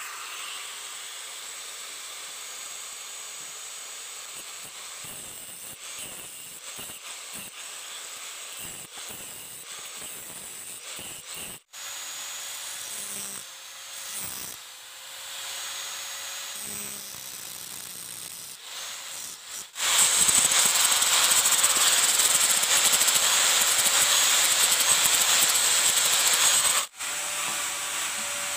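A power tool abrading a steel blade gives a steady hissing rush, heard in several edited takes. The loudest take starts about two-thirds of the way in and breaks off abruptly.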